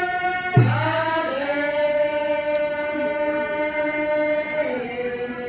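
Group voices singing a traditional dance chant in long held notes that shift pitch once early and once near the end. A single low thump comes about half a second in.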